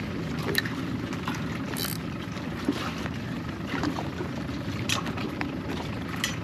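Small waves lapping against a paddle board's hull, with a few short splashes.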